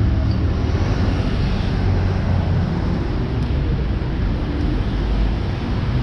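Steady low rumble of a small vehicle rolling along a brick-paved footpath.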